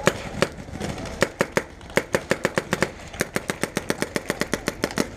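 Paintball marker firing: single shots at uneven spacing, then from about three seconds in a fast steady string of shots at roughly six to seven a second.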